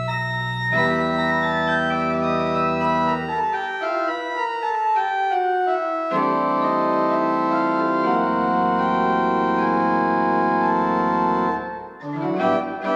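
Church organ playing slow, sustained chords over a deep pedal bass. The bass drops out for a few seconds in the middle and returns, and near the end the held chords give way to shorter, separate notes.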